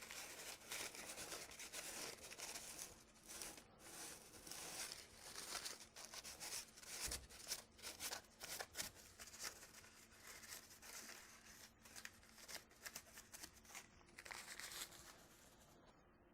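Faint, irregular rustling and light clicks of metal chips being cleaned off a small bench lathe that is switched off, thinning out after about fifteen seconds.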